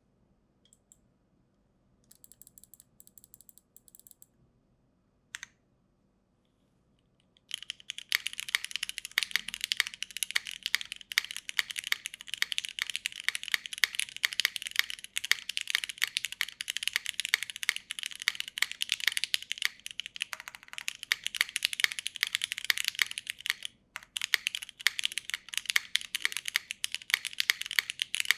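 Typing on a custom mechanical keyboard with broken-in, lubed and filmed Cherry MX Black linear switches, GMK keycaps and an aluminium plate on a leaf-spring gasket mount. A few faint key presses come first, then a quarter of the way in it turns into steady, rapid typing, with a short pause late on.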